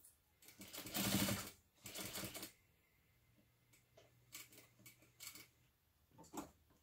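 Sewing machine stitching a basting seam at its longest stitch length, in two short bursts about a second and two seconds in, followed by light clicks of fabric and clip handling.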